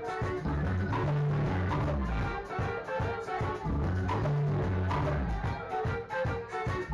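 Live band playing a song, heard from the audience: drums keep a steady beat under a repeating electric bass line, with guitars and keyboard on top.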